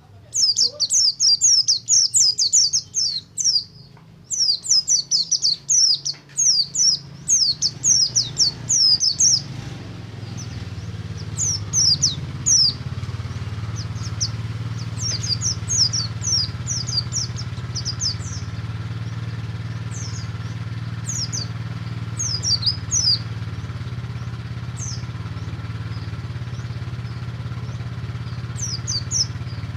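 A pleci (white-eye) singing a long, rapid run of quick high falling chirps, in bursts that thin into spaced clusters after about ten seconds. A steady low engine hum comes in about a third of the way through and runs under the song.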